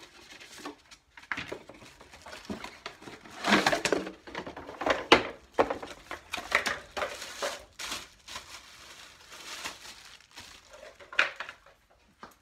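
Packaging being handled: irregular rustling and crinkling with sharp knocks, as a cardboard box holding a clothes iron is brought over and set down on a wooden workbench.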